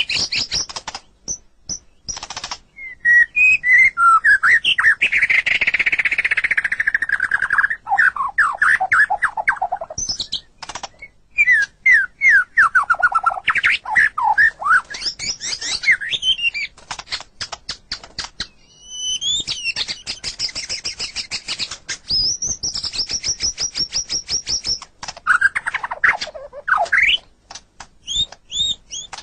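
White-rumped shama (murai batu) singing a long, varied song: loud whistled phrases and falling slurs broken up by bursts of rapid clicking chatter, with a run of fast repeated high notes about two-thirds of the way through.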